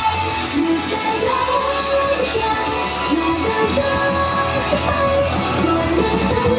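Pop-rock song performed live: female voices singing into microphones over a loud backing track.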